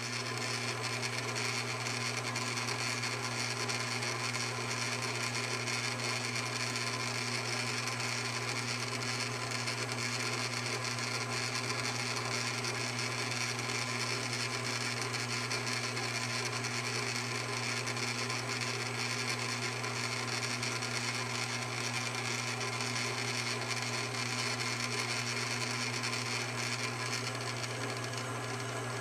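Cowells 90 ME bench lathe running steadily, its motor and drive giving an even hum with a whine of higher tones over it.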